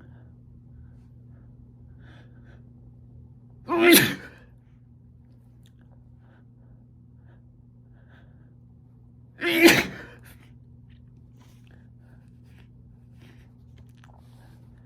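A man sneezing twice, about five and a half seconds apart, each a short loud burst, set off by chhinkni sneezing powder. A faint steady low hum runs underneath.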